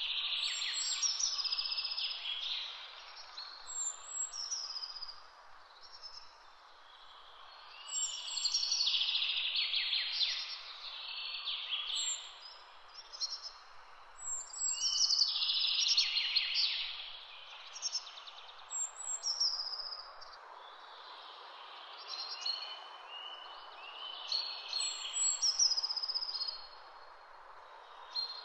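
Songbirds singing: high phrases a second or two long, repeated every few seconds, over a steady faint outdoor hiss.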